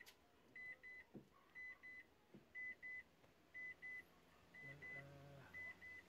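Faint electronic beeping: short high double beeps, a pair about once a second.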